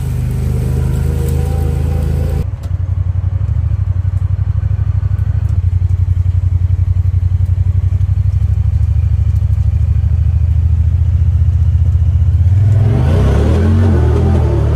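Side-by-side UTV engine running steadily as the vehicle drives along a dirt track. The engine note changes abruptly about two and a half seconds in, and near the end it wavers up and down with the throttle.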